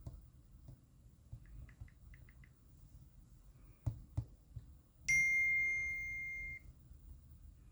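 Smartphone alert sounds: a quick run of faint short beeps, two light taps, then a single bright electronic ding that rings for about a second and a half and cuts off.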